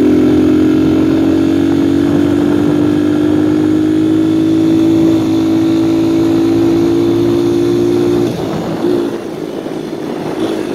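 Viper 150cc dirt bike engine running at steady high revs under way, its note creeping slightly higher, then the revs drop off about eight seconds in.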